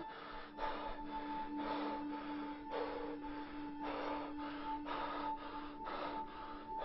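Quick, heavy breathing, about two breaths a second, over a steady droning music tone.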